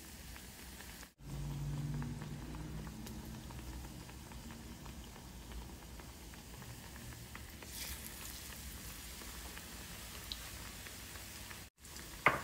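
Battered bread pakoras deep-frying in hot oil: a steady soft sizzle and bubbling. The sizzle brightens briefly about two-thirds of the way through as another batter-dipped slice goes into the oil.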